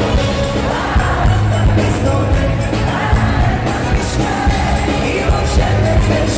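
Live pop band playing with a steady drum beat, a male singer singing the melody over it.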